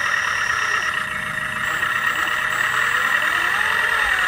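1/14-scale RC trucks and construction machines running, a steady mechanical whine and drone of their motors. A high steady tone stops about a second in.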